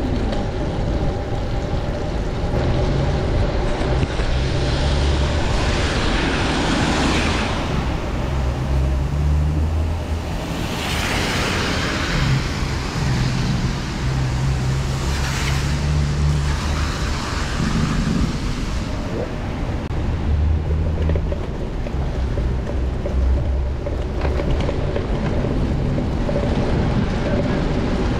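Wind buffeting the microphone while cycling through city traffic on rain-wet streets. Tyres hiss on the wet pavement as vehicles pass, swelling up three times in the first half or so.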